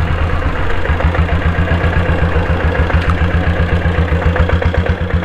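Royal Enfield Bullet fitted with a single-cylinder diesel engine, running at low speed with a steady, even beat.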